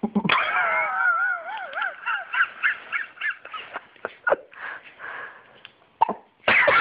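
Hiccups with vocal sounds in between: a sharp catch, then a high, wavering cry for about two seconds, a run of short squeaky calls, then several more abrupt hiccup catches, loudest near the end.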